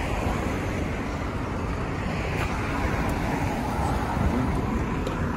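Street traffic: cars driving past on a city road, a steady rumble and hiss of engines and tyres.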